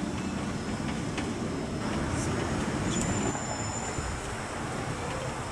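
Steady low rumbling background noise, with a few faint ticks and a brief thin high tone about three seconds in.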